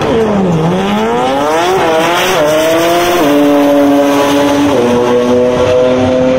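Drag car engine at full throttle on a run down the strip. The pitch dips at the launch, then climbs through four upshifts, dropping sharply at each shift, and holds a steady tone near the end.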